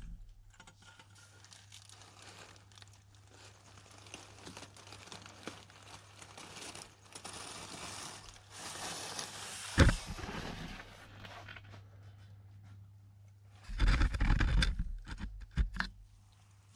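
Crinkling and rustling of bags being handled during a snake capture, with a sharp knock just before the tenth second and louder rustling and bumping from about fourteen to sixteen seconds, over a steady electrical hum.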